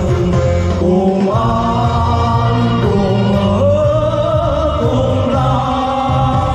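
Two men singing together into handheld microphones over a backing track, amplified through a stage PA, holding long sung notes over a steady bass line.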